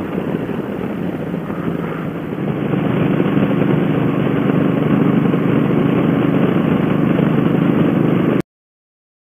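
Suzuki Boulevard M50's V-twin engine running steadily at cruising speed under rushing wind noise, getting louder about two and a half seconds in. The sound cuts off abruptly near the end.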